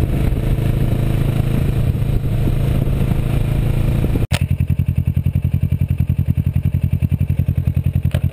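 Motorcycle engine running steadily. About four seconds in the sound cuts abruptly, and after that it runs with an even, fast pulsing, like an idle.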